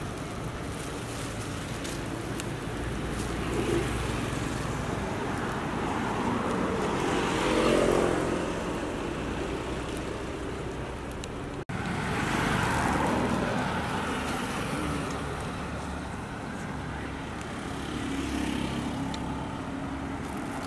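Street traffic: a steady hum of passing vehicles, with louder passes swelling up about a third of the way in, just past halfway, and again near the end.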